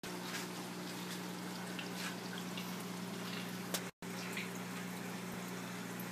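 Reef aquarium water circulation: water trickling and splashing with scattered drips over a steady low hum. The sound cuts out for a moment about two-thirds through.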